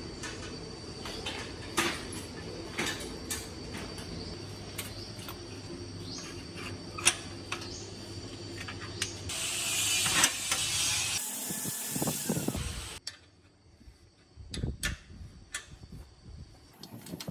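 Irregular mechanical clicks and knocks of workshop tools at work, with a burst of hiss about ten seconds in. Near the end, after an abrupt drop in level, come a few dull thumps.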